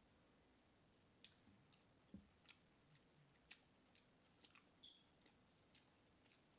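Faint close-up chewing: a string of soft mouth smacks and small clicks, starting about a second in.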